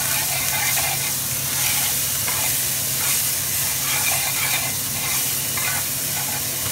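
Ginger paste with whole cumin and cinnamon sizzling steadily in hot mustard oil in a frying pan on low-medium heat, while a spatula stirs and scrapes across the pan in irregular strokes.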